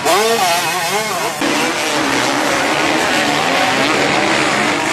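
Motocross bike engines revving up and down as they race over the dirt track. At first one close engine rises and falls quickly in pitch. After about a second and a half the sound changes suddenly to several bikes revving together at a lower pitch.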